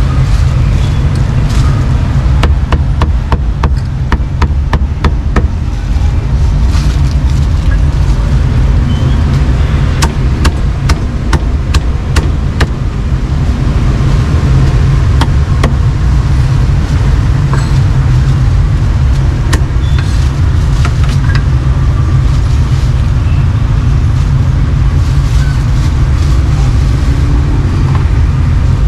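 Cleaver chopping meat on a chopping block, sharp knocks coming thick and fast for the first half and more sparsely after, over a steady low rumble of street traffic.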